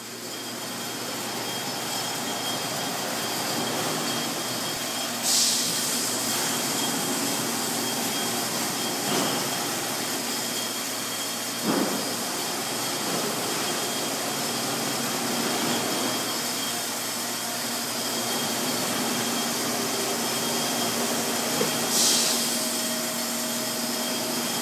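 Steady machinery noise of an industrial laundry running a Milnor continuous batch (tunnel) washer and its loading conveyor, with a faint high steady tone. Two short hisses break through, about five seconds in and near the end.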